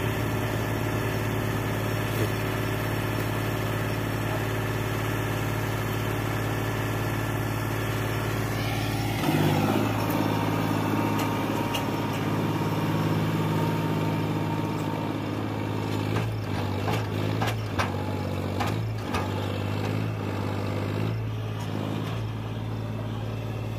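Diesel engine of a John Deere tractor running under load as it pulls a trailer heaped with soil up a dirt slope, its note shifting about nine seconds in.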